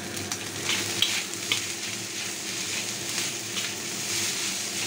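Fried rice sizzling in a hot wok, just dressed with soy sauce, as a metal spatula stirs and scrapes it, with a sharp scrape every second or so over a steady hiss.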